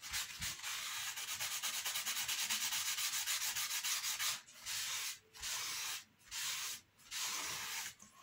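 Paper tissue rubbing over laser-cut wooden truss parts, wiping off excess white glue from the joins. Quick, continuous back-and-forth strokes for about four seconds, then four slower separate wipes.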